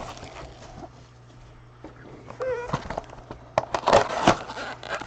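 Crinkling and tearing of plastic wrap as a trading-card box is opened, loudest near the end, with a short wavering whine about halfway through.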